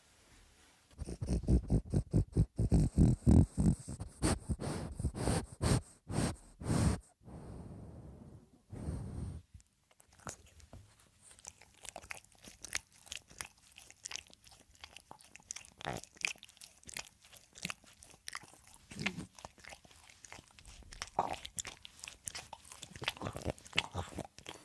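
French bulldog chewing and crunching hard food close to the microphone. Fast, loud crunches from about a second in, then quieter, more scattered chewing from about ten seconds on.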